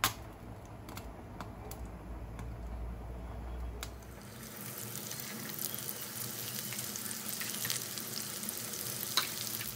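Ghee ticking faintly in a hot frying pan, then from about four seconds in a steady sizzle with scattered crackles as sliced onions fry in it.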